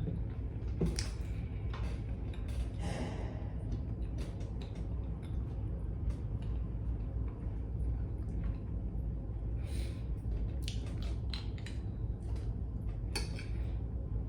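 A person eating during a mukbang: scattered small clicks, smacks and rustles of chewing and handling food at a plate, over a steady low hum.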